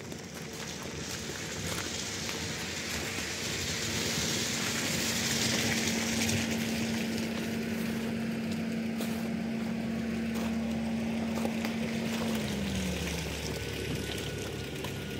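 A steady engine hum over a rushing hiss; near the end the hum drops in pitch and fades.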